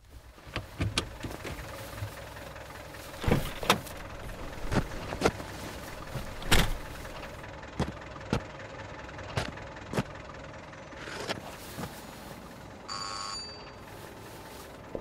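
Irregular knocks and thumps over a steady low background, then about two seconds before the end an electronic doorbell rings once.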